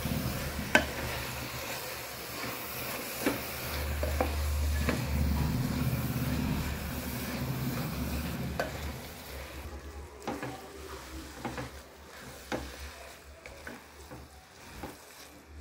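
A spoon stirs soaked rice and vegetables in a hot pot of fried masala, with a sizzle and scattered clinks of the spoon against the metal. The sizzling grows quieter after about nine seconds.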